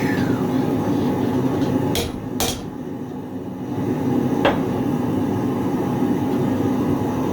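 Hammer blows on hot 1095 carbon steel at the anvil while forging: two strikes half a second apart about two seconds in, and a lighter one about four and a half seconds in, over a steady rushing background noise.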